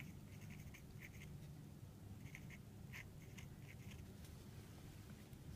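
Fine-tip marker pen writing on paper: a run of short, faint scratching strokes as words are written out.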